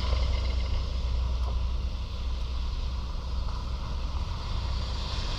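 Road traffic: the hiss of a passing vehicle fading away over a steady low rumble.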